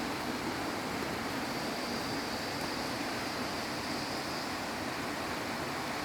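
Rain falling with a steady, even hiss.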